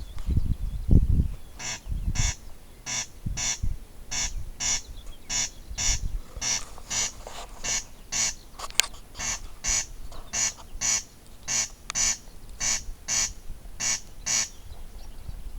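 Corncrake calling: a long run of rasping double notes, crex-crex, repeated about once a second, starting about two seconds in.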